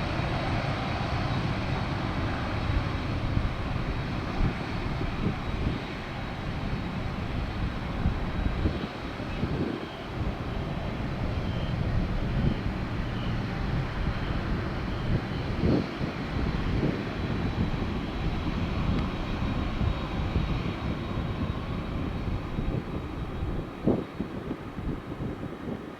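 Boeing 767-300ER's twin jet engines rumbling steadily as the airliner departs, with a thin steady whine above the rumble, easing a little near the end.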